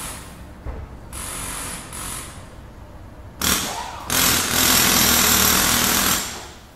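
A power tool in a garage, run in short bursts and then for about two seconds in a loud, steady, rattling-hiss run that ends about a second before the end.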